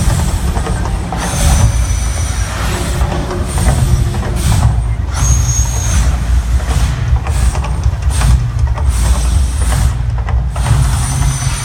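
Mirage volcano attraction erupting: a loud rushing roar over a heavy deep rumble, surging and dropping out briefly a few times.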